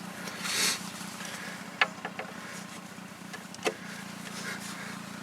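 A few sharp clicks, a quick group of three just under two seconds in and another near the middle, as hand tools for a 14 mm drain bolt are handled, over a steady low hum.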